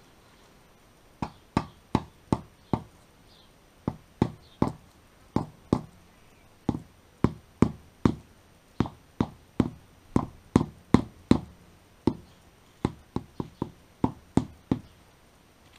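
Rubber mallet tapping concrete paving blocks to seat them level in their sand bed: about thirty sharp knocks in short runs of two to eight, starting about a second in.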